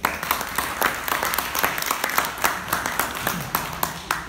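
Audience applauding: many people clapping at once in a dense, steady stream of claps.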